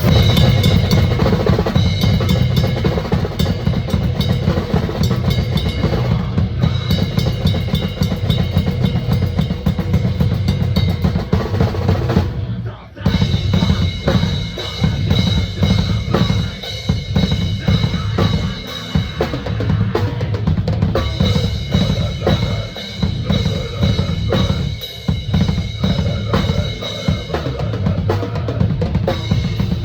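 Drum kit played hard and fast in a heavy metal style, with dense kick-drum and snare strokes and a short break about thirteen seconds in.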